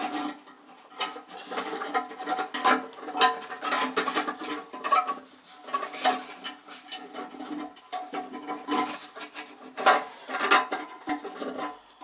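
A run of light clinks and knocks from hard parts being handled at a toilet tank and its flush handle.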